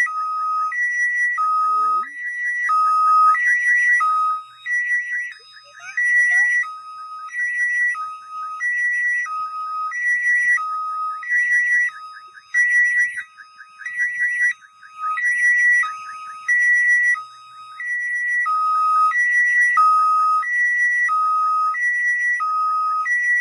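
Railway level-crossing warning alarm sounding: an electronic two-tone signal alternating evenly between a high and a lower tone about once a second, warning that a train is approaching.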